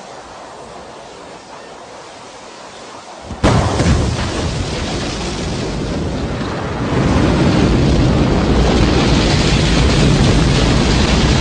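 Rocket engine ignition at launch: a low hiss, then about three and a half seconds in a sudden loud, deep blast of engine noise that steps up louder again about seven seconds in.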